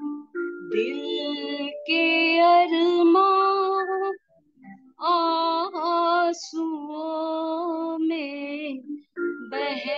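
Elderly woman singing solo, a slow melody in long held notes that waver slightly, in phrases broken by short pauses about four and nine seconds in.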